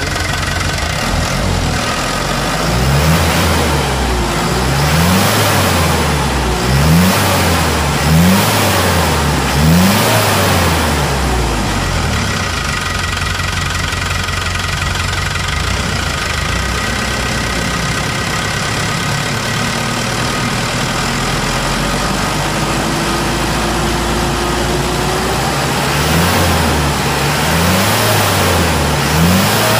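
Hino Dutro truck's diesel engine running with its injection pump freshly adjusted. It is revved up and down about once a second for the first ten seconds or so, idles steadily, and then gets a few more revs near the end.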